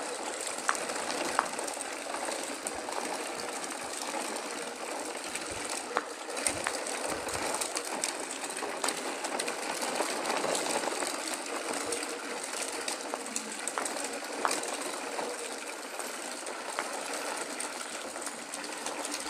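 Plastic toy vehicle wheels rolling over rough asphalt as a chain of toy trucks and cars is towed along by a ribbon: a steady rattle with many small clicks.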